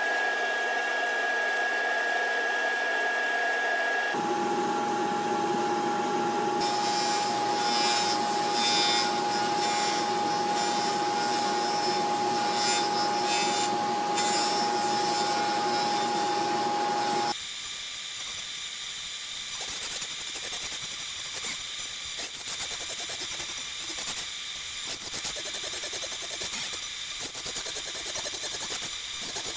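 Table saw running with a steady high whine, its blade cutting around the edge of a round reclaimed-barnwood tabletop to put a bevel on it. The whine and noise change abruptly a few times, about 4, 7 and 17 seconds in.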